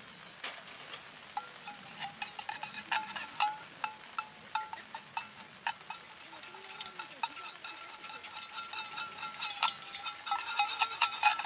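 A metal utensil stirring and clinking against a metal pot, with many quick clinks that grow busiest near the end and a ringing tone that lingers between them.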